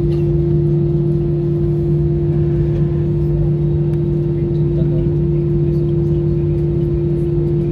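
Cabin noise of an Airbus A320-family airliner taxiing after landing: the engines and air system make a steady hum, with two unbroken low tones over a rumble.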